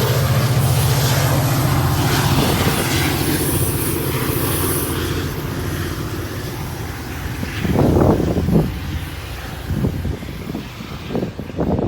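A passing train's rumble and hum fading away over several seconds, followed by gusts of wind buffeting the microphone from about eight seconds in.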